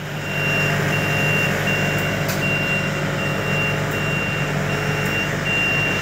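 Yanmar combine harvester's diesel engine running steadily while its reverse alarm sounds a high beep repeating about every three-quarters of a second, the signal that the machine is in reverse.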